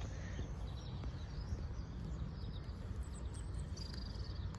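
Small birds chirping faintly and intermittently over a steady low background rumble.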